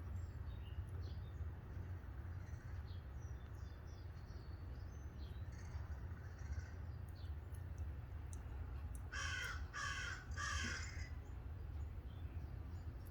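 Crows cawing: three loud caws in quick succession about nine seconds in, with faint short high chirps scattered through the rest and a steady low rumble underneath.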